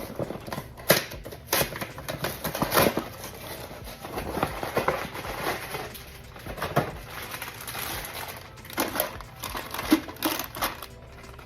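Irregular crinkling of plastic packaging and light clicks and knocks of items being handled.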